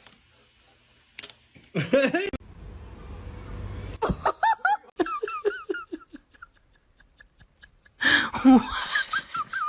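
Laughter in bursts of short, rapidly repeated notes, one run falling in pitch midway, with the loudest laughter near the end.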